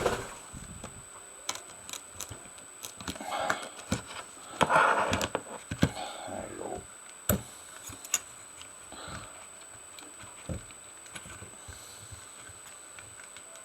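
Scattered small clicks and taps of plastic opening picks and tools on an iPhone XR's screen and frame as the glued display is worked loose, with a louder rustling scrape about five seconds in.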